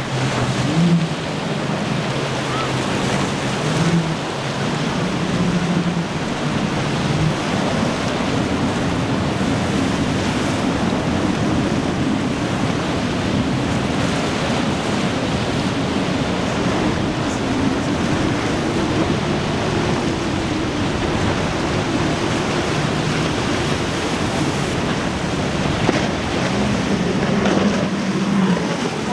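Rough surf washing and breaking steadily, with motorboat engines humming and changing pitch as boats pass through the waves, and wind buffeting the microphone.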